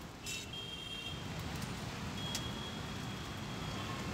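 Metal spatula scraping and clinking on a hot dosa griddle, a few short strokes, over a steady background noise of a roadside food stall with traffic.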